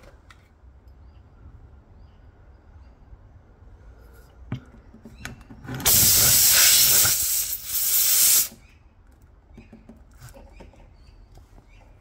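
Air hissing loudly out of a tire puncture as a rubber plug strip is pushed in on a T-handle insertion tool, in two bursts about two and a half seconds long together, after a light click a second or so earlier.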